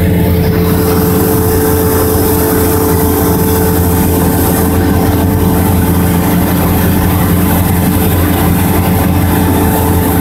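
Cessna 172's piston engine and propeller running with a steady drone, heard from inside the cabin.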